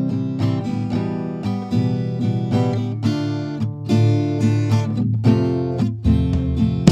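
Background music on acoustic guitar, plucked and strummed chords.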